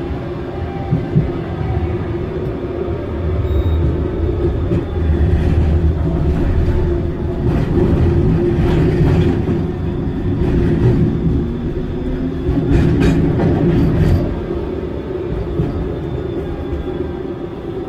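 Solaris Tramino S105P low-floor tram running on its rails: a steady rumble of wheels and running gear with a held hum, growing louder through the middle. A run of sharp clicks comes about two-thirds of the way through, and a few tones slide in pitch near the end.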